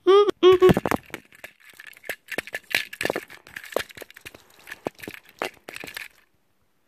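A few sung or hummed notes at the very start, then close handling noise: a quick run of sharp clicks, knocks and rustles for about five seconds, stopping near the end.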